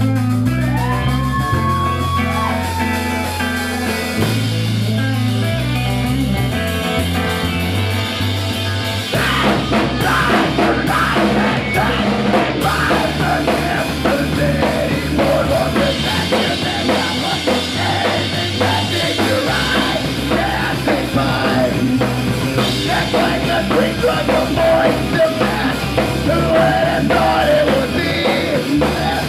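Punk rock band playing live, loud: a bass line of low notes opens the song, and the drum kit and guitars come in about nine seconds in, with the full band playing on from there.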